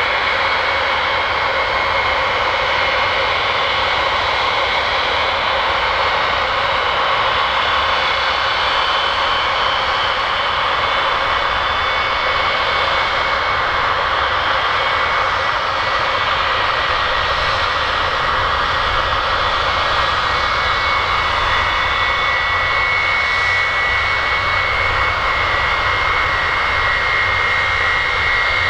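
Boeing E-3A Sentry's four Pratt & Whitney TF33 turbofan engines at taxi power, a steady loud jet whine with a high tone that grows stronger about two-thirds of the way through as the aircraft passes close by.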